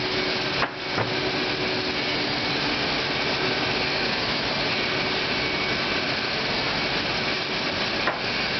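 Steady drone of print-shop machinery running, with a faint steady hum under it. Sharp clicks about a second in and another near the end.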